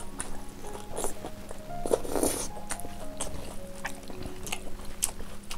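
Background music of short held notes under close-up eating sounds: wet chewing and lip-smacking clicks from mouthfuls of curry-mixed rice eaten by hand, with a louder noisy bite about two seconds in.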